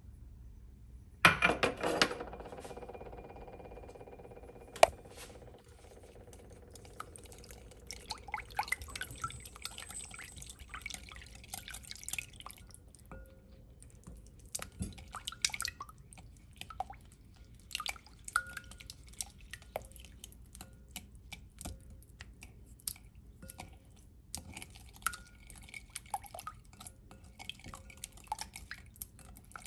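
A wire whisk stirring milk, egg and butter in a glass mixing bowl: liquid sloshing, with frequent small clinks of the whisk against the glass. About a second in, a loud clink on the glass bowl rings out for a few seconds, and a second sharp clink comes near five seconds.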